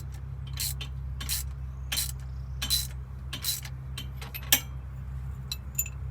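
Light metallic clinks about every half second, one louder clink about two-thirds of the way through, as steel head bolts are handled. A steady low hum runs underneath.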